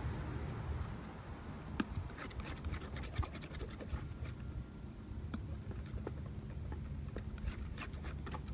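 Painting tools scratching and tapping as paint is worked, in quick small strokes bunched about two seconds in and again near the end, over a low steady background rumble.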